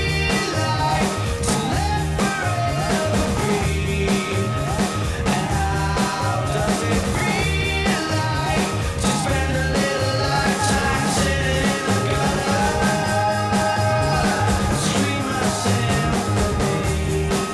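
Background rock music with a steady beat and a singing voice.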